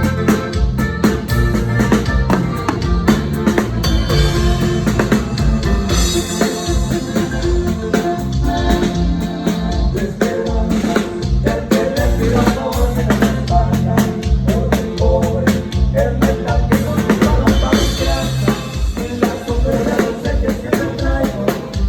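A live band playing an instrumental passage, with a drum kit keeping a steady beat of kick, snare and rimshots under bass and a sustained melody.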